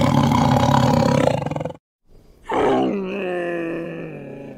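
A tiger's rough roar, about two seconds long. After a short pause comes a second animal call, a long smooth moan that falls in pitch and fades.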